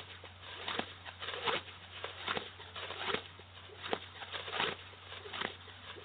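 A plastic bag on the string of a horse-training stick swishing and rustling as it is swung rhythmically, about eight swishes at a little more than one a second.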